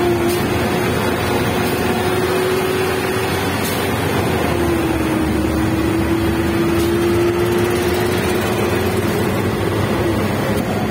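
Auto-rickshaw's small engine running under way, heard from inside the open passenger cabin with a steady rush of wind and road noise. The engine note holds steady, dipping slightly about five seconds in.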